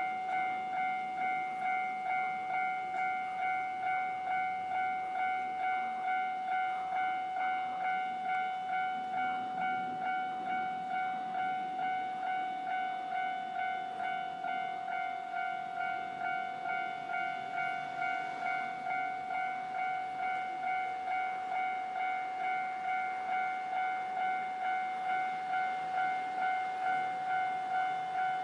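Japanese level-crossing warning bell ringing without a break: one repeating electronic tone struck about twice a second, the signal that a tram is approaching the crossing.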